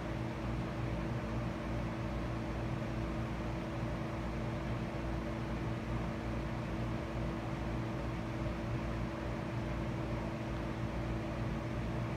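Steady mechanical hum with a low drone that holds at one pitch and level throughout, with no sudden sounds.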